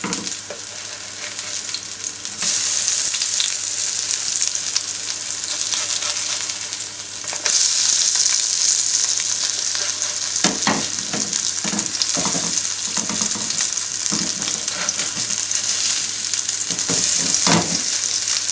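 Courgette fritters sizzling in olive oil in a non-stick frying pan, the sizzle stepping up louder about two seconds in and again about seven seconds in as fritters are turned over onto their raw side. In the second half a plastic spatula knocks and scrapes against the pan several times.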